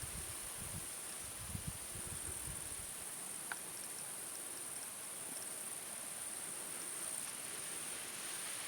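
Steady, high-pitched insect chirring over outdoor hiss, with irregular low rumbles in the first few seconds and a single short click about three and a half seconds in.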